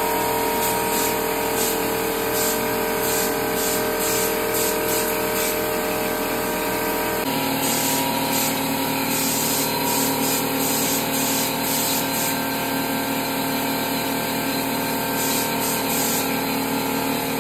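Electric pancake air compressor running steadily with the hiss of compressed air from a drywall texture hopper gun spraying texture onto a wall. The motor's hum changes pitch about seven seconds in.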